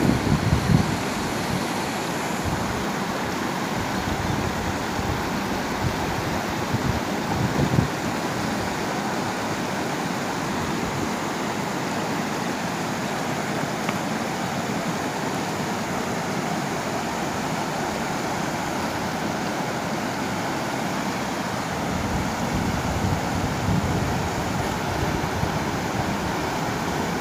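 River rapids rushing steadily over rocks, a constant roar of white water.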